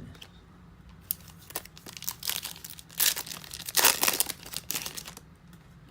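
Trading-card pack wrapper being torn open and crinkled by hand: a few light clicks, then a dense crackling run that is loudest in the middle and stops about a second before the end.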